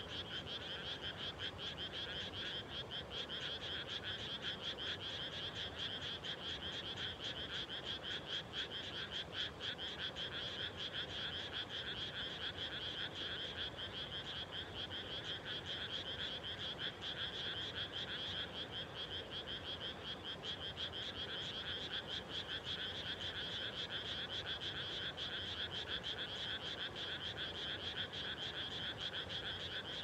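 A dense chorus of many frogs calling from a flooded rice paddy, a continuous mass of fast, pulsed croaks without let-up.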